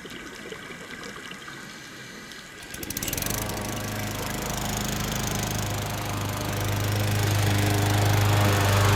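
A small engine comes in about three seconds in and runs steadily, getting louder toward the end, over a faint steady hiss.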